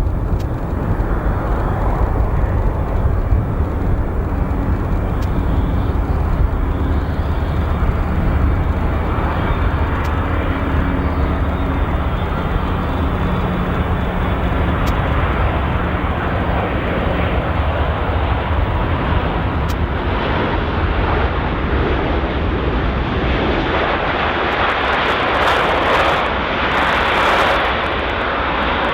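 Boeing 787 Dreamliner airliner in flight for landing: a steady low rumble of jet engines and airflow. In the last few seconds it turns into a louder rushing hiss.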